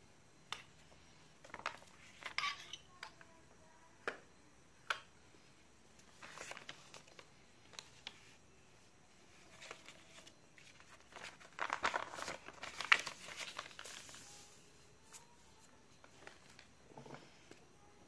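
A sheet of paper rustling and crinkling as it is handled, with scattered light clicks and taps. The longest and loudest rustle comes about two thirds of the way in.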